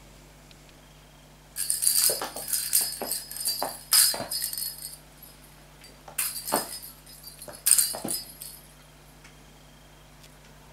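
Small pink cat toy ball with a bell inside jingling and rattling as it is batted and bounces across a bare wooden floor, with sharp knocks on the boards. It comes in two spells, the second starting about six seconds in.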